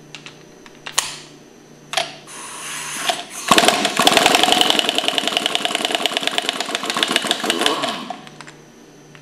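Cordless impact driver with a 5/8 socket hammering rapidly for about four seconds as it undoes the nut holding a pump's impeller, after a couple of sharp clicks as the socket goes on.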